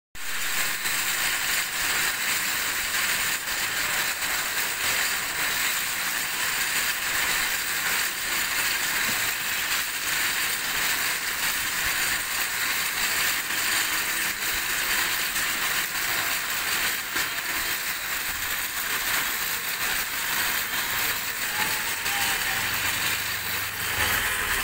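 Yarn winding machine running steadily as it winds yarn off a spinning hank onto bobbins: a continuous mechanical whir with fine rapid ticking, strongest in the higher pitches.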